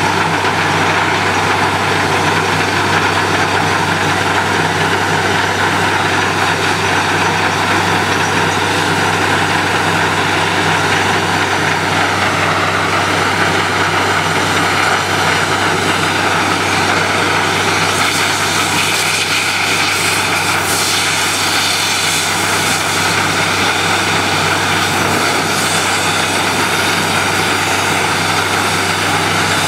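Truck-mounted borewell drilling rig running steadily while drilling: a constant low engine hum under a loud, broad hiss, with no break. The hiss grows brighter for a few seconds past the middle.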